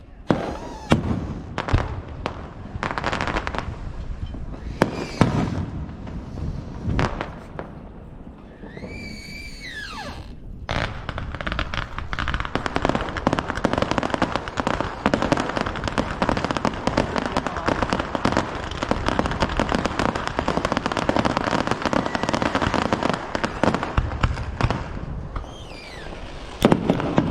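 Aerial fireworks at close range: several sharp bangs of bursting shells, then a whistle with a wavering pitch about nine seconds in. After that comes about fifteen seconds of dense, continuous crackling, and more bangs near the end.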